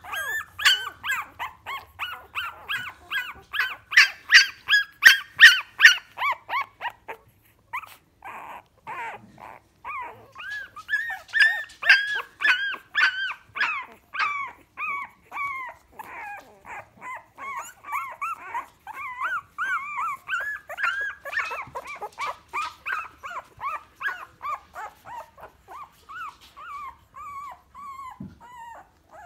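A litter of young Staffordshire bull terrier puppies whining and squeaking almost without pause: a quick run of short, high calls, several a second, loudest a few seconds in.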